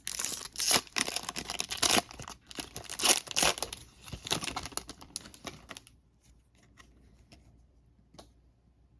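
A trading card pack wrapper being torn open and crinkled for about six seconds, then a few faint clicks as the cards are handled.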